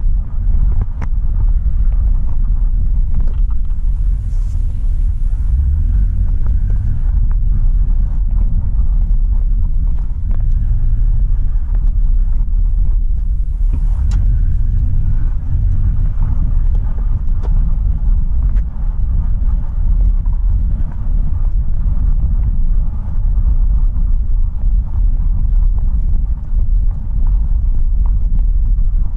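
Dodge pickup truck driving: a steady low engine and road rumble.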